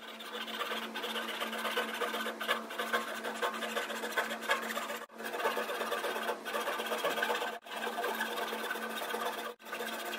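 Japanese pull saw cutting into mahogany in rapid strokes, a continuous rasp broken by short pauses about five, seven and a half and nine and a half seconds in. The saw is cutting depth kerfs along the spiral layout lines of a barley-twist blank.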